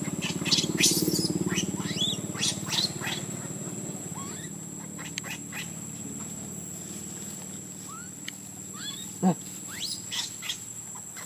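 Baby macaque crying in short, high squeaks that slide in pitch, many in quick succession over the first three seconds, then fewer, with one sharper, louder cry about nine seconds in.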